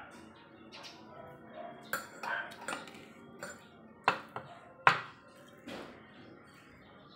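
Metal spoon and fork clinking and scraping against a ceramic plate as rice is scooped up, a series of short sharp clinks with the two loudest about a second apart past the middle.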